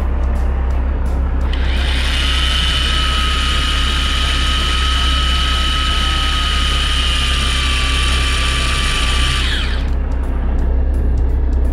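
Miya Epoch R800 electric deep-sea reel's motor whining steadily as it winds in line with the rod bent under load. It starts about a second and a half in, dips slightly in pitch near the end, and cuts off abruptly about ten seconds in.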